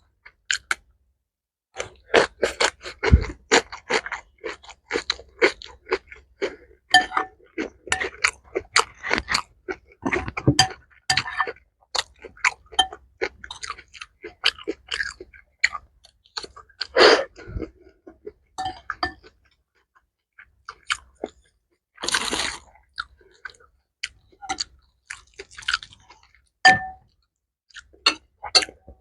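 Close-miked chewing of a mouthful of mixed rice with kimchi and vegetables: a dense run of wet, crackly mouth clicks. It pauses briefly, and a short hiss comes about three quarters of the way through.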